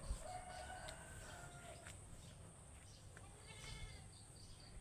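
Faint farm-animal calls: one long call just after the start and another shorter one around three and a half seconds in, over a steady high insect drone.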